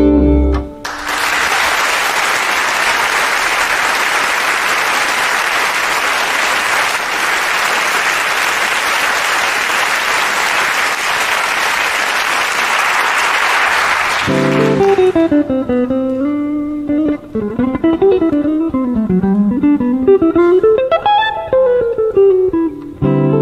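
A jazz piece ends on a held note of violin and bass, then an audience applauds for about thirteen seconds. As the applause fades, a guitar begins a solo introduction to the next tune, picking single notes that wander up and down, with low notes joining just before the end.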